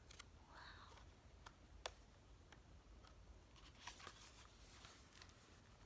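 Near silence: quiet room tone with a few faint clicks and a soft rustle, typical of a picture book's pages being handled.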